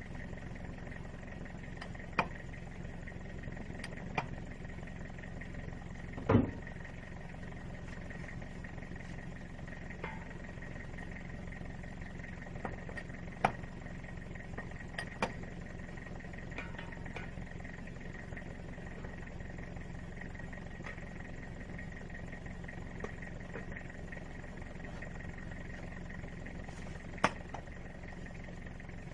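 A vehicle's engine running steadily as a low, even hum, with a few sharp knocks and clicks; the loudest knock comes about six seconds in.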